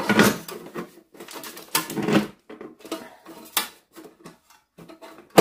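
Bread maker's bread pan being fitted and turned into its seat in the machine: irregular clattering and knocking, with a sharp click near the end.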